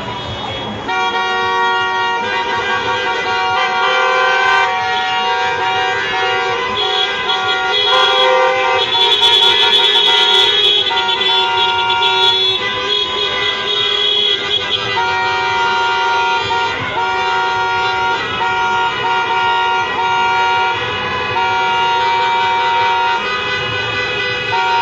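Many car horns honking together, several held long and overlapping at different pitches, starting about a second in.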